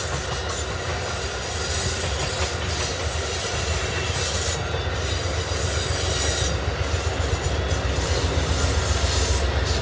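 Amtrak Superliner bilevel passenger cars rolling past on the rails: a steady rumble and rush of wheels on track, with a thin high wheel squeal at times, growing slightly louder toward the end.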